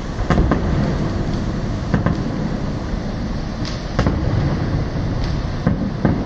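Aerial fireworks bursting: about half a dozen sharp bangs at irregular intervals over a steady low rumble.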